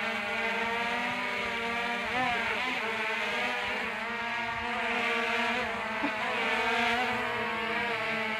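Quadcopter drone's rotors buzzing steadily as it hovers and drifts overhead. The rotor pitches shift and cross against each other a couple of times as it moves.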